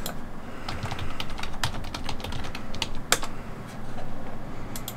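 Typing on a computer keyboard: irregular keystroke clicks, with one louder key strike about three seconds in and a quick pair near the end.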